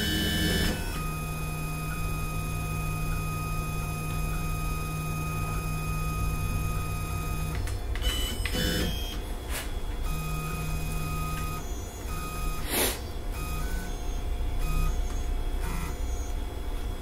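Onefinity CNC's stepper motors whining as the machine moves: a steady tone for about six seconds, then a run of short bursts, with a few sharp clicks between them.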